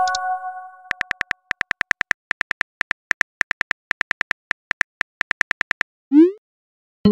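Texting-app keyboard sound effects: a rapid run of key-tap clicks, about six or seven a second, as a message is typed. Before the typing a notification chime fades out, and after it a short rising bloop marks the message being sent, with another chime starting right at the end.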